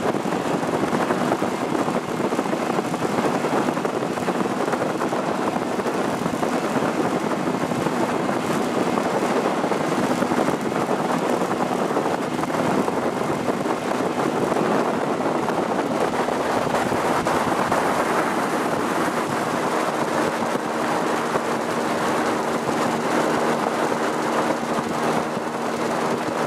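Outboard boat motors running at speed, with water rushing past the hull and wind on the microphone, heard from a moving boat. A steadier engine tone comes through more clearly about twenty seconds in.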